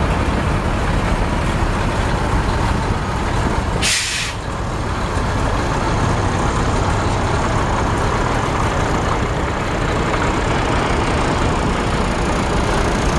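Truck's 5.5-litre inline-six turbo diesel engine idling steadily. About four seconds in, a short, sharp hiss of air is released from the air brake system.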